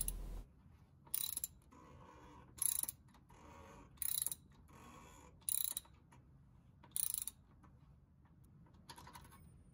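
A hand ratchet clicking in short bursts, about one every one and a half seconds, on its return swings. It is driving a cap-type filter wrench that tightens an oil filter housing down until it bottoms out. A fainter burst comes near the end.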